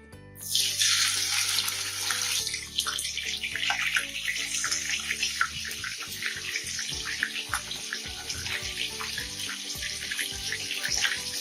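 Rohu fish pieces hitting hot mustard oil in a kadai: a sudden loud sizzle about half a second in, settling into steady frying sizzle full of crackles and pops.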